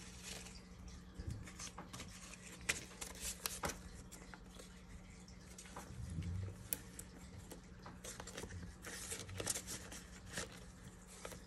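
Hands counting paper banknotes and sliding them into a clear plastic binder sleeve: soft, scattered rustles, flicks and crinkles.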